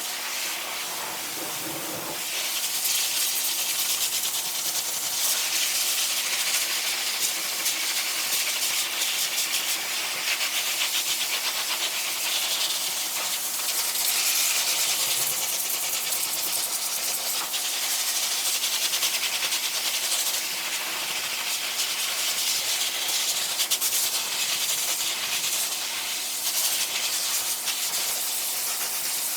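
Dog-grooming force dryer blowing a steady, loud hiss of air, with a steady motor hum beneath it.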